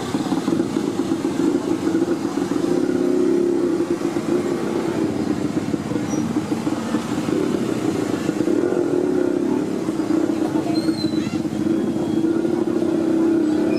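A small engine running steadily throughout.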